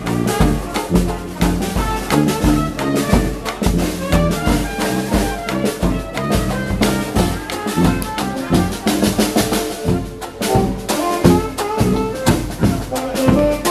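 Dixieland jazz band playing live: a sousaphone bass line and bass drum with cymbal keep a steady beat under brass horns carrying the tune.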